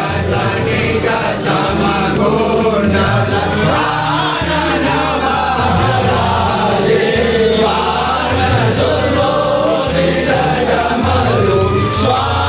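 Hindu devotional chant sung over instrumental backing music, with a low bass pattern that shifts every second or two.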